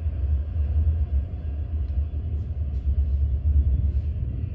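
Low, steady rumble of a London Underground train running through the tunnels, heard from a deep-level platform.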